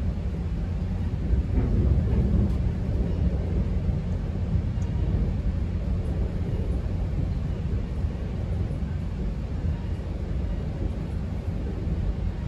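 Steady low rumble of a GO Transit commuter train, heard from inside a coach, swelling slightly about two seconds in.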